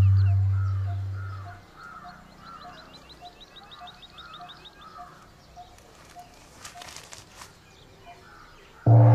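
A low held music note fades out over the first second and a half, leaving quiet outdoor ambience with birds calling in a steady repeating pattern and a fast run of high chirps in the middle. Loud background music cuts back in abruptly near the end.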